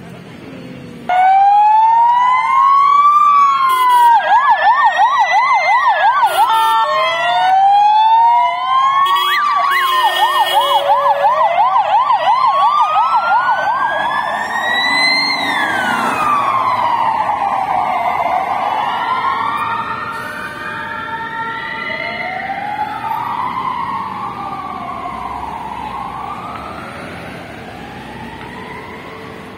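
Emergency vehicle siren passing close. It starts suddenly and wails, rising and falling over a few seconds, and twice switches to a fast yelp of about six cycles a second. Later several wails overlap as the sound fades away.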